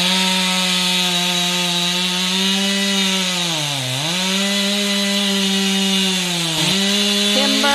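Two-stroke chainsaw running at full throttle through the back cut of a tree being felled, its revs sagging about four seconds in and again briefly near the end as the chain loads up in the wood.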